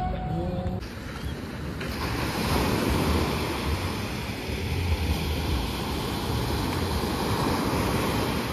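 Small waves breaking and washing up on a sandy beach, with wind buffeting the microphone. The surf rush is steady throughout.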